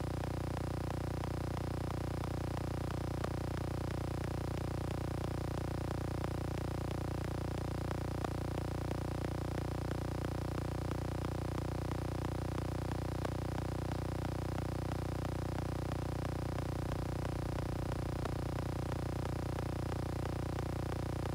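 Steady low electrical hum made of several even tones, with faint small ticks and clicks scattered through it.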